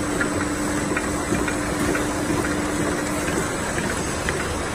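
Bouillon cube press and production-line machinery running: a steady mechanical noise with light ticks, and a low hum that drops out about three and a half seconds in.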